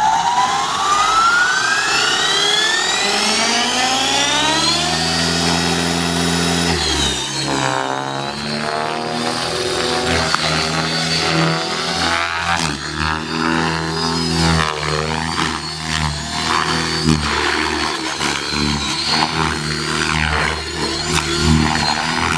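Align T-Rex 600E electric RC helicopter spooling up: the motor and rotor whine rises steadily in pitch for about six seconds. Then it flies on with the pitch wavering and dipping as the load on the rotor changes.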